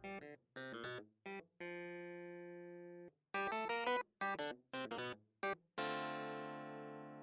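Background music of plucked, guitar-like notes, some short and some left ringing until they fade.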